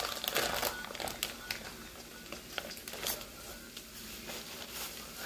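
Crinkling and crackling of a plastic bacon package being handled and its clear film peeled off the tray, in a run of short irregular crackles that is busiest in the first second.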